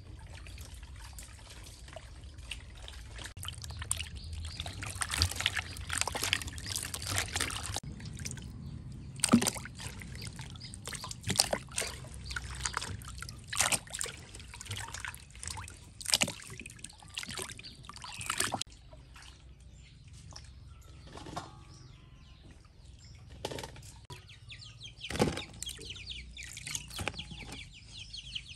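Water splashing and pouring as pieces of peeled fruit are washed by hand in a basin of water, in irregular bursts that thin out in the second half. A few birds chirp near the end.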